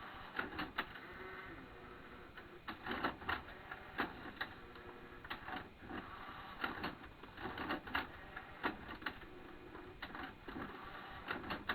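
Irregular clicks and light knocks, some in quick clusters, from a secondhand stereo CD player being handled and its buttons pressed.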